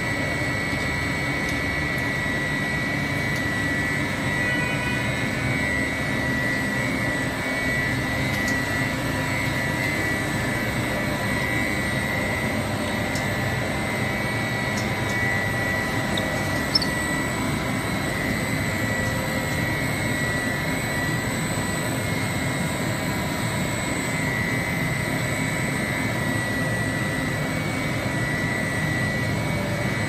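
A plastic pelletizing line (conveyor, extruders and strand pelletizer) running under power: a steady industrial machinery drone with a constant high whine over it. There is a single brief click about halfway through.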